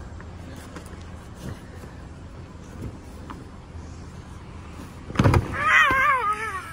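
A heavy thump as children land on a thick foam crash mat about five seconds in. It is followed at once by a child's high, wavering yell.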